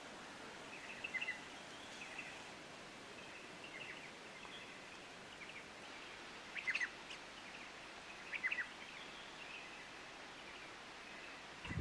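Wild birds calling: clusters of short, quick chirps every second or two, the clearest about two-thirds of the way through, over a faint steady background hiss.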